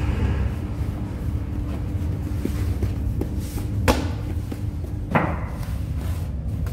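Lavash dough slapped with a cushion onto the hot inside wall of a clay tandoor oven: two sharp thumps about four and five seconds in, over the oven's steady low rumble.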